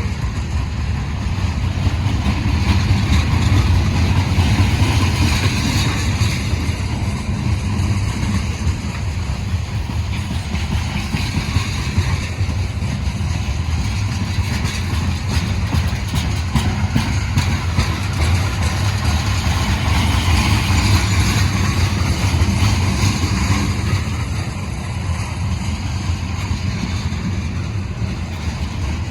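Long BNSF freight train on the move: a steady low diesel locomotive rumble with the noise of the rolling train over it, swelling and easing gently, with no horn.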